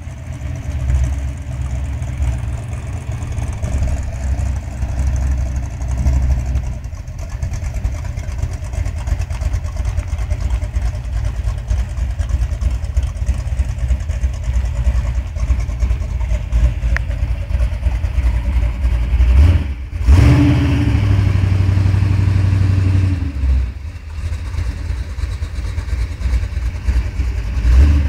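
1965 Dodge Coronet 500's V8 engine running at idle with a loud, deep rumble as the car backs out and pulls away. About two-thirds of the way through it is revved, the pitch rising and held for a few seconds before dropping back, and it rises again briefly near the end.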